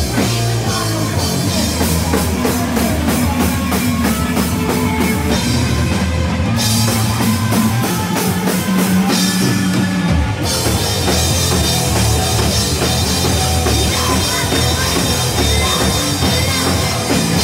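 Live rock band playing loud, with drum kit, distorted guitars and bass at full volume. A few seconds in there is a run of fast, even drum hits.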